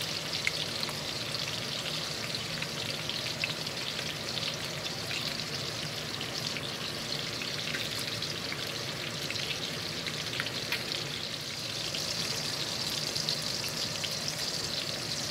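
Marinated pork chops frying in hot oil in a wok: a steady sizzle scattered with small crackles and pops as they brown.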